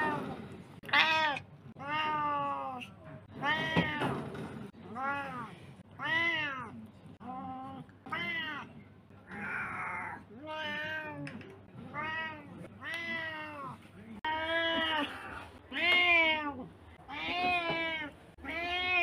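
Domestic cat meowing over and over, roughly one meow a second, each call rising and then falling in pitch. One call about halfway through is breathier and rougher than the rest.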